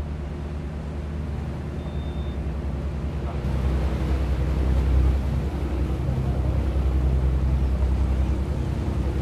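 Fishing boat's engine running steadily underway, a low drone that grows louder over the first few seconds.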